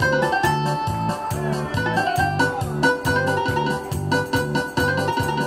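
Upbeat dance music with a steady, even beat and a bright melody, played over a loudspeaker for a group line dance.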